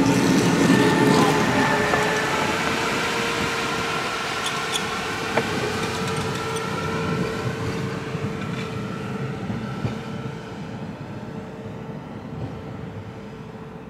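Sapporo streetcar snow-sweeper car No. 23 running slowly over packed snow with a steady whine and grinding noise. Its wheels are crushing the compacted snow on the rails instead of the sasara brooms sweeping it. A few sharp snaps near the middle come from arcing at the overhead wire, and the sound fades as the car moves away.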